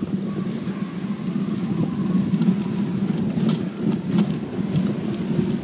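Dog sled runners scraping over packed snow on the trail: a steady, low, rough noise, with a few light clicks from the sled.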